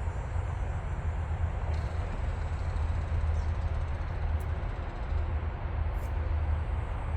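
Steady low engine rumble with an even hiss over it, holding constant without revving or cutting.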